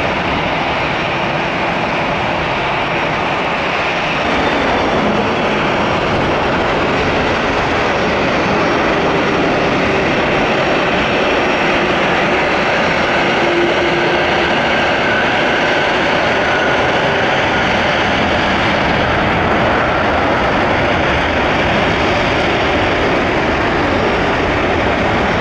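Airbus A330 jet engines at high thrust: a steady, loud roar with faint tones drifting in pitch, stepping up in loudness about four seconds in.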